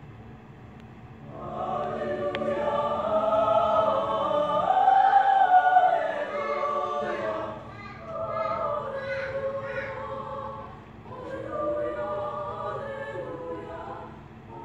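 High-school madrigal choir of mixed men's and women's voices singing sustained notes in parts. They enter about a second and a half in, swell to their loudest around the middle, and break briefly between phrases.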